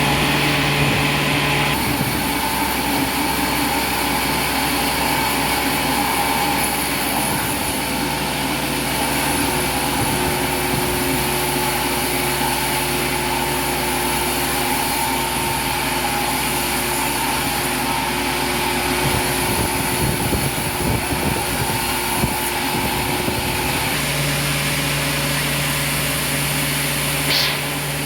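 Industrial sawmill machinery running steadily: a loud continuous mechanical din with several constant motor hums. The mix shifts a little a few times, and two short high squeals rise near the end.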